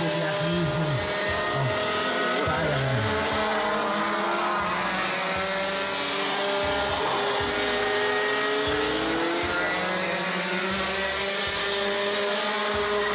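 Several two-stroke racing kart engines running on the track at once, their pitch rising and falling as the karts accelerate and lift off through the corners.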